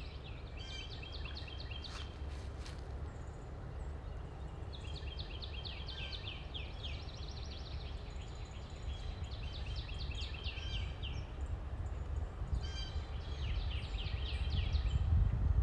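A songbird singing, four phrases of quick, repeated high notes a few seconds apart, over a steady low rumble.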